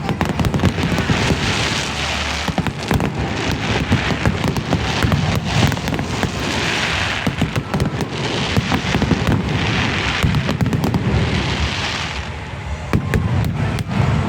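Aerial fireworks going off without pause: dense crackling and popping mixed with booms, the crackle swelling and fading every second or two.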